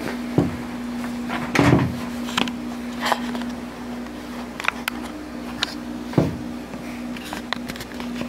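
A steady low hum with a few knocks and clicks over it. The loudest knock comes just under two seconds in, and another about six seconds in.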